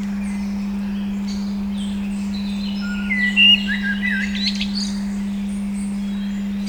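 Steady 200 Hz pure tone with songbirds chirping over it; a cluster of louder, quick chirps and whistles comes about three seconds in and lasts a couple of seconds.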